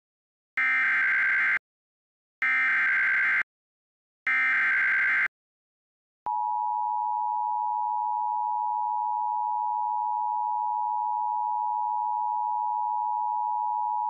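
Emergency Alert System header: three one-second bursts of SAME digital data warble, about a second apart, announcing a severe thunderstorm warning. After them comes the steady two-tone EAS attention signal, held for about eight seconds.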